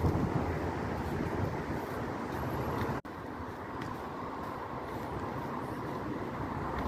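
Steady vehicle noise, with a sharp break about three seconds in.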